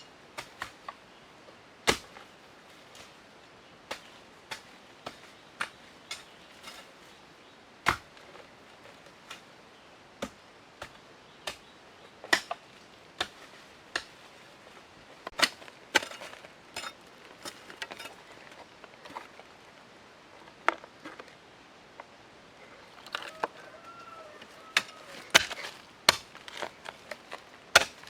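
Irregular sharp knocks and taps, like chopping or striking with a blade, some single and some in quick clusters, scattered through the whole stretch.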